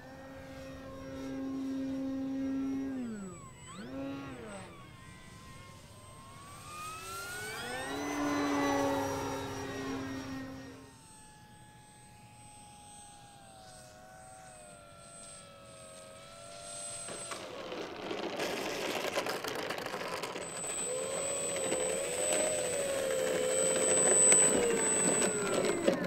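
Electric motor and propeller of an FMS PA-18 Super Cub RC plane, a whine that rises and falls in pitch as the throttle is worked through several passes. About two-thirds through it becomes louder and closer, a wavering motor tone over a rushing noise.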